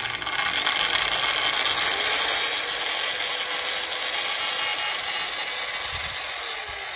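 Corded 220 V electric drill with a 10 mm chuck running: its motor whine builds over the first couple of seconds, holds steady, then winds down near the end.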